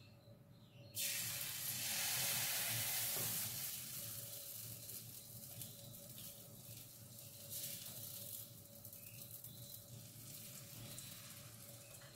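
Protein pancake batter sizzling as it is poured into a hot, oiled frying pan. The hiss starts suddenly about a second in, is loudest for the next couple of seconds, then settles to a quieter, steady sizzle.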